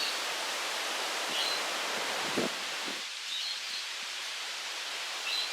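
Steady outdoor background hiss, with a few faint bird chirps about one and a half, three and a half and five seconds in.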